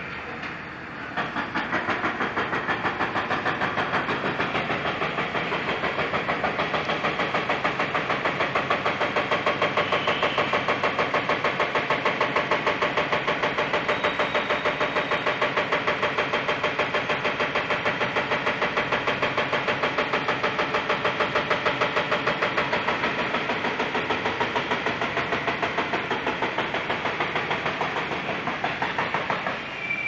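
Heavy construction machinery at a demolition site pounding in a fast, even rhythm. It starts abruptly about a second in and stops just before the end.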